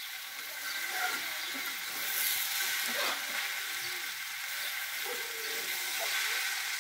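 Chopped greens sizzling in a small two-handled wok over a wood fire as they are stirred, a steady frying hiss. There is a brief knock about three seconds in.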